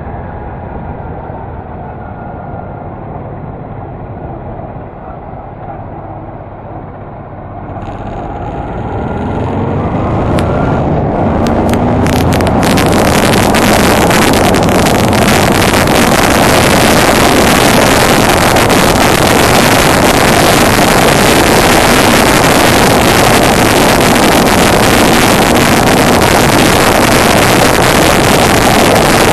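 Honda Deauville NT650V's V-twin engine running gently at low speed, then accelerating with rising revs through the gears about eight seconds in. From about twelve seconds on, a loud, steady rush of wind on the microphone at riding speed drowns it out.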